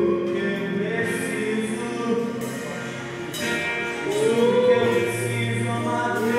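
Worship music: voices singing long, wavering held notes over sustained instrumental accompaniment.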